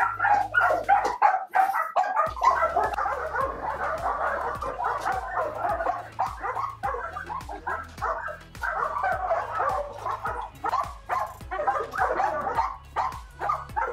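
Several hungry kennel dogs barking and yipping over one another at feeding time, over background music with a stepping bass line.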